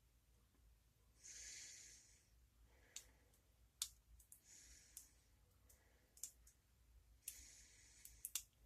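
Faint, scattered clicks of a lock pick and tension wrench working the pins of a brass padlock, with a few soft breaths close to the microphone.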